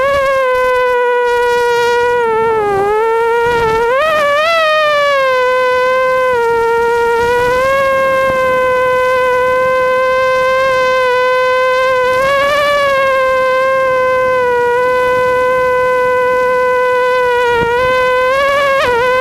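Immersion Vortex FPV quadcopter's electric motors and propellers whining steadily in flight. The pitch dips and swings back up a few seconds in and again near the end as the throttle changes.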